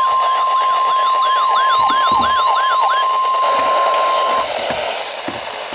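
Weather radio alert: the steady 1050 Hz NOAA Weather Radio warning alarm tone, overlaid for the first three seconds by a warbling electronic alarm sweeping up and down about three times a second. The steady tone cuts off about four and a half seconds in, leaving a hiss of radio static.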